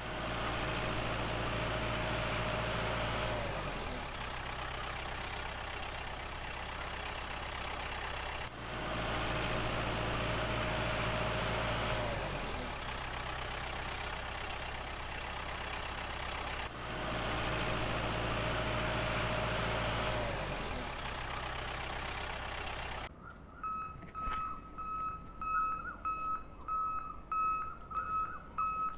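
Vehicle engine running steadily, the same stretch of about eight seconds repeated three times, each time with a whine that slides down. Near the end it gives way to a quieter, broken electronic beeping.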